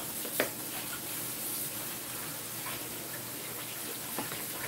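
Kitchen tap running steadily into a sink, with two light clinks, one about half a second in and one near the end.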